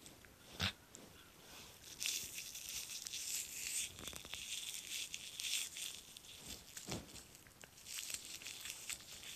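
Rustling and crinkling as a Shiba Inu puppy mouths and paws at a person's hand on a towel, in several bursts, with a couple of soft knocks.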